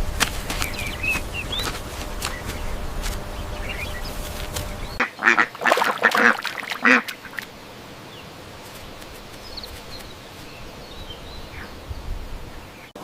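A duck quacking several times in quick succession about five seconds in. Before it, small birds chirp faintly over a low steady rumble that cuts off just as the quacks begin.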